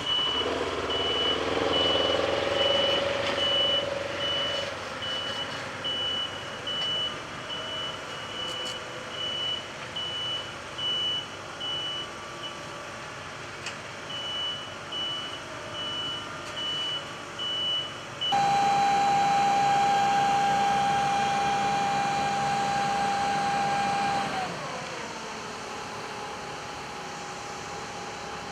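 Reversing beeper of a heavy vehicle sounding in a steady run of evenly spaced beeps over its running engine. About 18 seconds in, this cuts to a steady motor whine that winds down in pitch some six seconds later.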